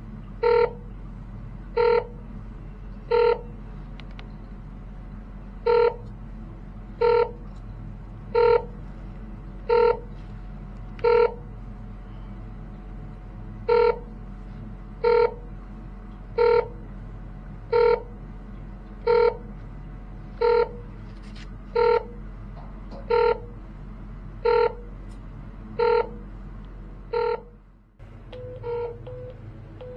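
Satellite finder meter beeping as the dish is aimed: a short pitched beep about every second and a third, with a beat skipped twice, over a steady low hum. Near the end the hum drops out and the beeps turn quicker and quieter. The beeps signal that the meter is picking up the satellite's signal.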